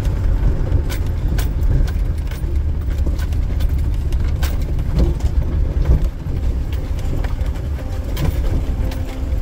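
Land Rover Defender driving slowly over a rocky, wet track, heard from inside the cabin: a steady low rumble with frequent knocks and clicks of stones under the tyres and suspension.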